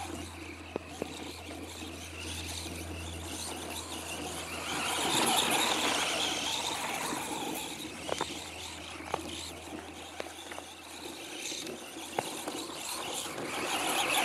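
Electric motor and drivetrain of a Traxxas Slash 4x4 RC truck running, its tyres churning through snow, rising and falling as the truck circles and growing louder near the end as it passes close. The drivetrain runs on a newly replaced main bearing, pinion and spur gear, and sounds a lot better for it.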